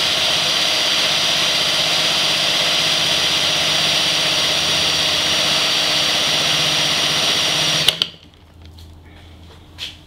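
A motor-driven ceiling-fan alternator rig running with a steady whine while it charges a battery at about 53 watts. About eight seconds in there is a click and the running sound cuts off suddenly as the drive is stopped.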